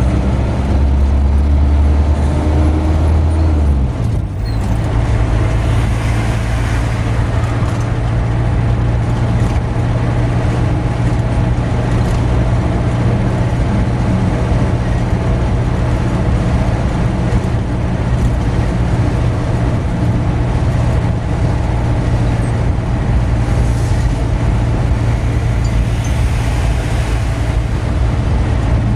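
A car driving on a highway, heard from inside the car: a steady engine hum with tyre and road noise. A deeper low rumble stops about four seconds in.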